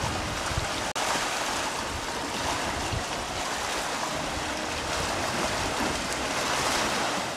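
Small waves lapping and washing over a rock at the water's edge: a steady wash of water that cuts out for an instant about a second in.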